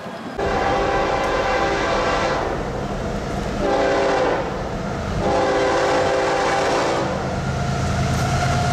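CSX diesel freight locomotive sounding its air horn as it approaches: a long blast, a short one, then another long one held into a steady tone. The locomotive's engine rumble grows near the end as the train draws near.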